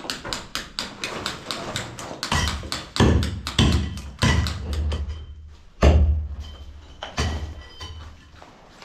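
Hammering: a quick even run of light taps, about five a second, then about six heavier blows with a deep thud, spaced half a second to a second and a half apart.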